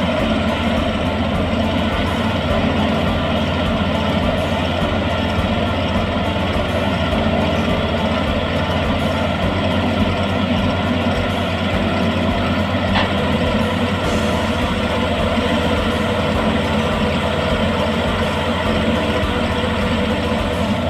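Yanmar YH850 rice combine harvester's diesel engine and machinery running steadily, a constant, unbroken drone.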